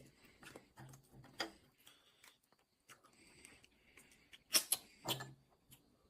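Close-up eating sounds of soy-sauce marinated crab: a few sharp clicks and smacks from the shell and mouth, the loudest cluster about four and a half to five seconds in.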